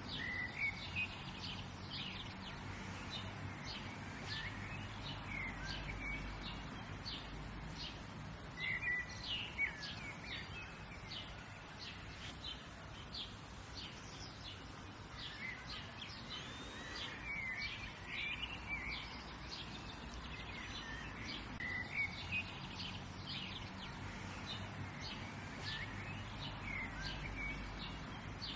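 Ambient birdsong: several birds chirping and calling in short, frequent phrases over a steady low background noise.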